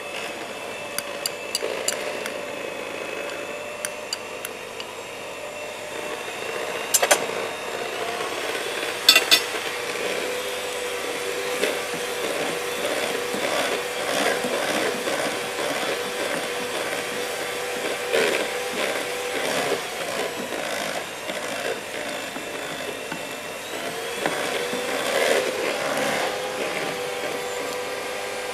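Electric hand mixer running steadily, its beaters whipping mascarpone in a glass bowl with a scraping, rubbing sound against the glass. Two sharper knocks come about seven and nine seconds in.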